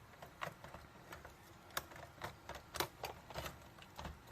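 Irregular light clicks and taps of hard plastic, about a dozen in a few seconds, as the PS5 console's plastic housing is handled and pried at.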